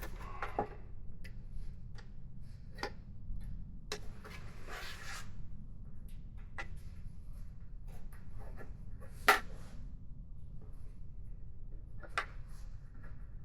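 Scattered small clicks and a short stretch of rubbing as rubber grommets are worked into the mounting holes of a clear plastic motorcycle windshield. One sharp click, the loudest, comes about nine seconds in.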